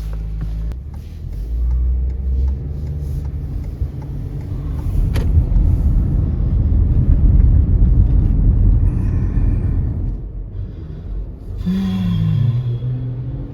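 Car driving on the road, a steady low engine and road rumble that swells for several seconds in the middle. Near the end a pitched tone drops and then holds.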